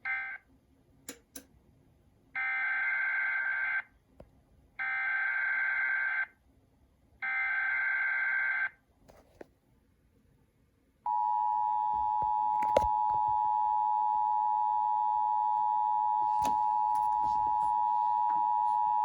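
Emergency Alert System tones on a broadcast radio station. A short data burst ends the previous alert, then three SAME header bursts of rapid warbling digital tones, each about a second and a half with short gaps. About 11 seconds in, the steady two-tone EAS attention signal starts and holds for eight seconds, announcing the monthly test message.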